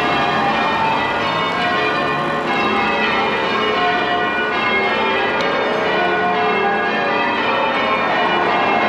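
A peal of church bells, rung as change ringing: many bells struck one after another in a continuous, overlapping sequence.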